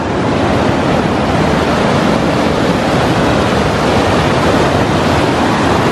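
Mountain river rushing over rocks in whitewater rapids: a loud, steady rush of water that swells in the first half second, then holds.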